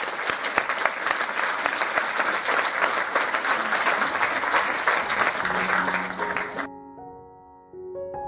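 Audience applauding, a dense run of many hands clapping that cuts off suddenly near the end, giving way to soft piano music.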